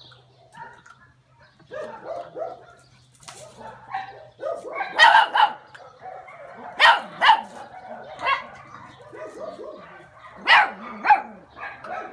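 Miniature Xoloitzcuintli puppies barking and yipping as they play-fight. The loudest barks come in quick pairs about five, seven and ten and a half seconds in, between softer yaps and grumbles.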